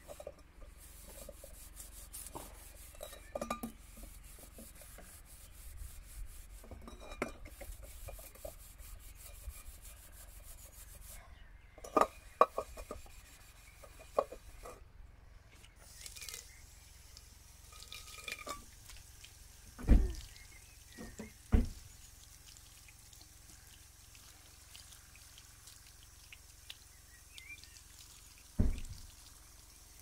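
A metal cooking pot scoured by hand with oak-wood ash to clean off soot blackening: steady rubbing with small clinks and knocks as the pot is turned. There are a few louder dull thumps, three of them in the second half.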